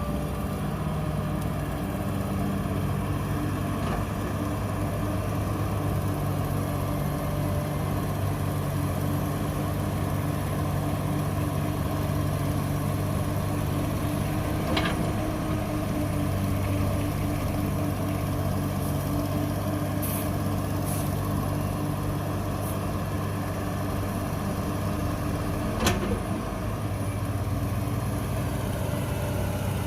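Heavy diesel engine of earthmoving machinery running steadily at a constant pitch, with two sharp knocks, one about halfway through and a louder one near the end.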